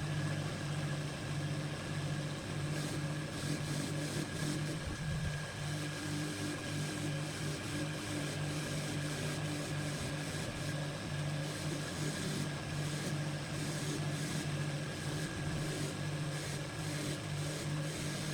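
A machine's motor running steadily, with a low pulsing hum and a thin high whine above it.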